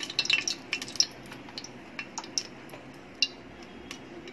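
Cooking oil being poured into a pot, with quick sharp ticks and crackles, many in the first second or so, then a few scattered ones.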